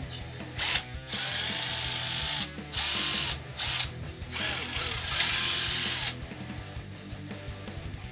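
Makita TD022D cordless 7.2 V folding impact driver running in about five bursts, the longest about a second and a half, each a harsh rattle over a motor whine. Background guitar music plays under it.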